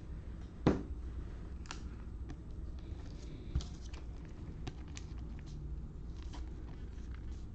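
Trading cards being handled and sorted: scattered light clicks and taps of card stock, the sharpest about a second in, over a low steady hum.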